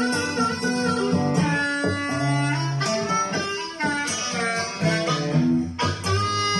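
Recorded music played back through a 12-inch mid-range speaker under a sound test, with notes held and changing throughout.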